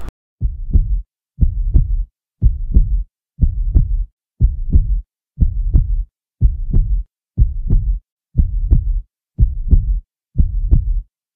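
Heartbeat sound effect: a steady lub-dub double thump, about once a second.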